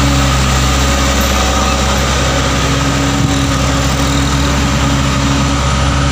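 Diesel engine of a loaded Mitsubishi Canter light dump truck pulling up a steep grade as it passes close by, a loud, steady low engine note.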